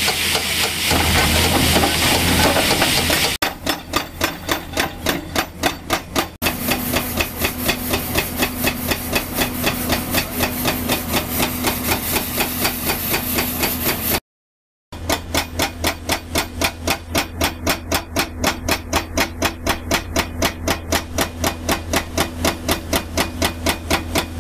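Excavator-mounted rock saw cutting bluestone with a steady grinding rush. Then, after a cut, a rapid, even pounding of several blows a second over the excavator's running engine.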